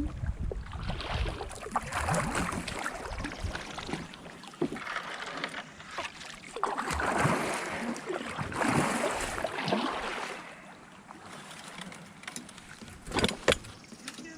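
Kayak paddle strokes in river water: swelling splashes and swishes as the blades dip and pull, with a couple of sharp knocks near the end.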